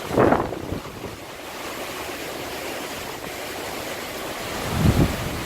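Strong gusty wind of an approaching hurricane rushing steadily past the microphone. Two hard gusts buffet the microphone, one just after the start and one near the end.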